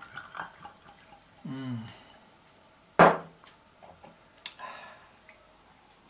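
Pear distillate poured from a glass bottle into a stemmed glass, trickling and dripping over the first second. About three seconds in, one sharp, loud knock as the glass bottle is set down on the counter, followed by a smaller click a little later.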